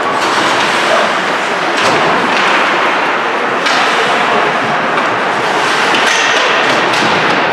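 Ice hockey arena sound during play: a steady noisy wash of skates on ice and the rink's hall, with a few light knocks from sticks, puck or boards.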